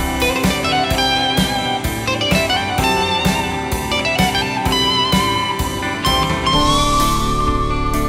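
Instrumental blues-rock tune: an electric guitar plays a lead melody with gliding, bent notes over a bass guitar and a steady drum beat. About six and a half seconds in, the guitar holds one long note with vibrato.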